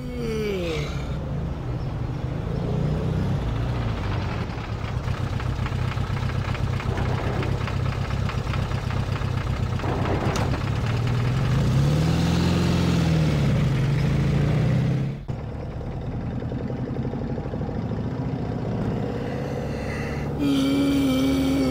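A car engine drones steadily. A long falling yawn trails off at the start, and another yawn begins near the end.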